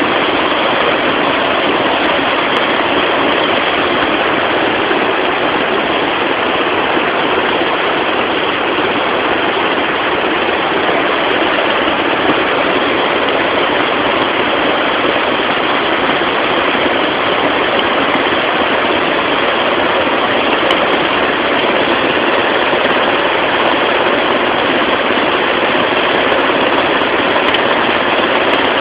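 Steady, loud, unbroken rushing noise of a motorboat running through fast, rough river water, with the engine and the water blended together.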